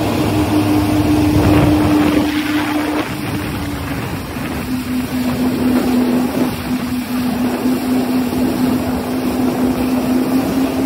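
Jet ski engine running at speed: a steady drone that settles slightly lower in pitch about four seconds in, over the rush of spray and wind.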